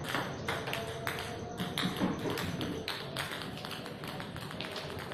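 Table tennis balls clicking in quick, irregular succession as they strike the table and paddle during serve practice. The clicks thin out toward the end.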